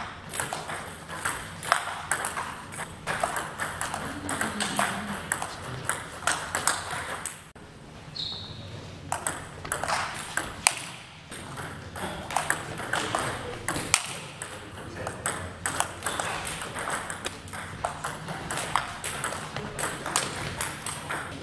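Table tennis rallies: the celluloid ball clicking quickly off the bats and the table, with a short pause between points about a third of the way in.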